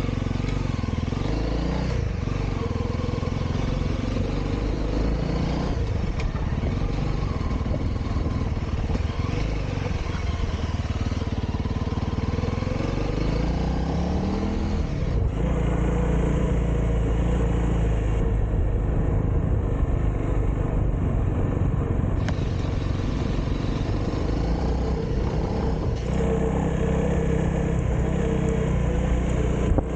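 Honda CRF300L's single-cylinder four-stroke engine running as the bike rides along at low speed, with road and wind noise. About halfway through, the engine note rises as it speeds up.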